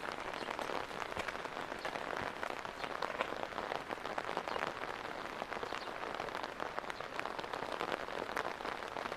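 Steady rain falling, with many small, sharp drop ticks close by as drops hit the umbrella overhead.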